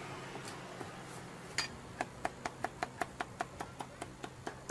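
A cleaver chopping crispy roast pork on a wooden board in a quick, even run of sharp knocks, about five a second, starting about a second and a half in.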